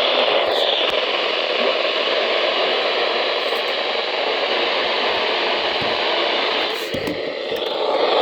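Steady hiss of static from a weather radio receiver, dipping briefly about seven seconds in.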